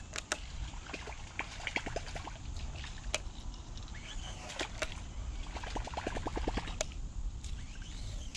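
A topwater lure is twitched and reeled in on a baitcasting reel, giving scattered sharp clicks and small splashes on the water. Short runs of quick ticks come about six seconds in. A few high bird calls and a low steady rumble lie underneath.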